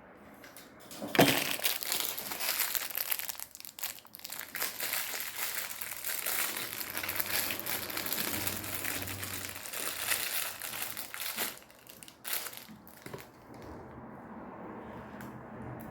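Packaging crinkling and rustling as it is handled, with a sharp knock about a second in. The rustling stops about eleven seconds in, with one more short rustle after.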